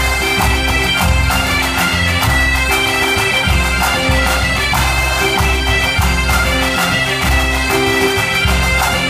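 A band of Asturian bagpipes (gaitas) playing a xiringüelu, a traditional Asturian dance tune, in unison over their steady drone, with a bass drum beating a regular pulse underneath.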